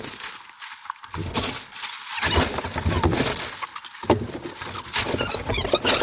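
Clear plastic vapour-barrier sheeting rustling and crackling as it is pulled and handled, in irregular spurts with a few sharp clicks.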